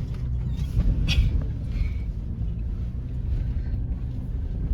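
Low, steady rumble of a Toyota 4Runner crawling over a rough dirt trail, heard from inside the cabin, with a sharp knock about a second in.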